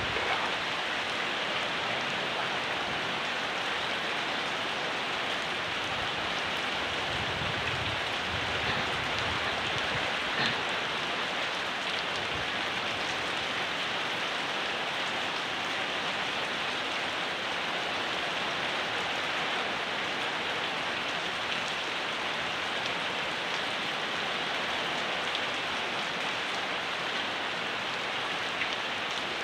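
Steady rain falling in the countryside, an even patter with scattered individual drops. A faint low rumble comes and goes about seven seconds in.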